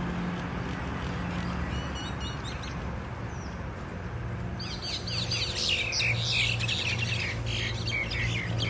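A group of mynas calling as they fight: a few faint short high notes at first, then from about halfway through a dense run of rapid, overlapping harsh chattering calls.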